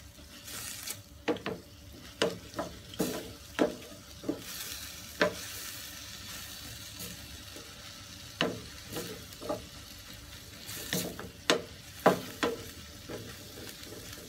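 Wooden spatula scraping and knocking irregularly against a stainless steel frying pan as green beans and carrots are stir-fried, over a steady sizzle. The knocks thin out in the middle and come closer together again near the end.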